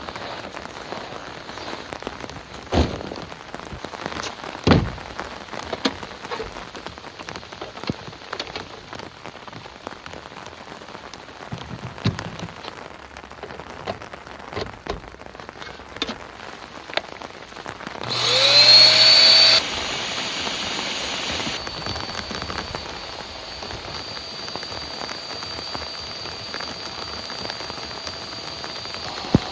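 Rain pattering steadily with scattered sharp drop knocks. About two-thirds of the way in, a small electric motor, likely the electric air pump for the inflatable tent, starts with a rising whine and then runs on steadily at a lower level.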